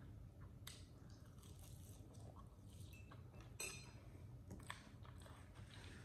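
Faint mouth sounds of a person chewing a mouthful of chili cheese fries, with a few soft clicks, the loudest about three and a half seconds in.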